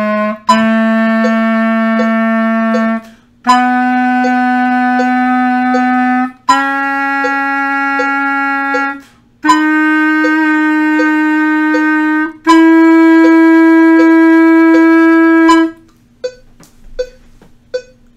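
Clarinet playing a rising major scale in long held whole notes, each about three seconds: the concert F scale, fingered as the clarinet's G scale. A metronome ticks softly along at 80 beats per minute. The last and highest note is the loudest, and it stops about sixteen seconds in.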